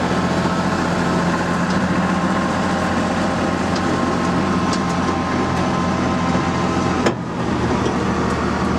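Engine of an open-air tram running steadily as it rolls along, with a sharp click about seven seconds in, after which the engine's low note changes.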